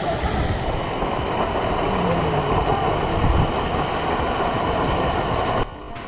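Waterfall pouring down at close range and crashing into a shallow pool and onto rocks, a loud steady roar of falling water that drops abruptly in level near the end.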